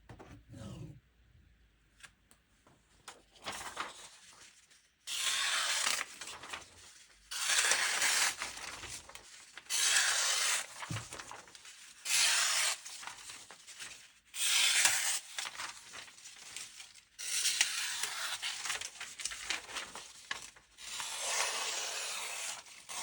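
A knife blade drawn in long, hissing, rasping strokes, seven in all, beginning about five seconds in after a few light clicks. Each stroke lasts one to three seconds.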